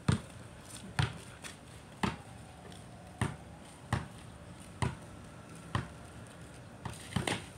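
A basketball being dribbled on a concrete court: single sharp bounces at roughly one-second intervals, about eight in all.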